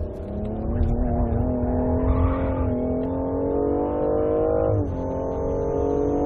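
BMW M235i's turbocharged 3.0-litre straight-six engine accelerating hard under full throttle, its pitch rising steadily, with an upshift about three-quarters of the way through that drops the revs before the engine pulls up again.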